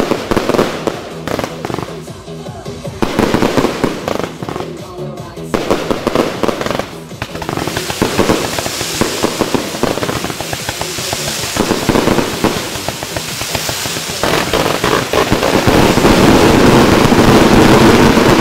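A truck trailer's load of massed fireworks going off: dense, rapid firecracker crackle with rockets launching, growing much louder about two-thirds of the way through.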